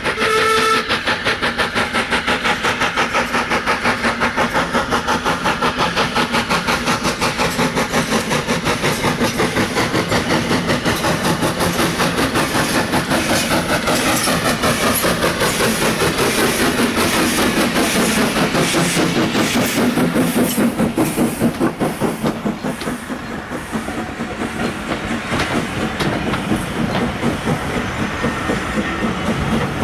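Austerity 0-6-0 saddle tank steam locomotive working a train past at close range: a rapid, even beat of exhaust chuffs with hiss. Its sound falls in pitch as it goes by about two-thirds of the way through. It is followed by the coach's wheels clicking over the rail joints.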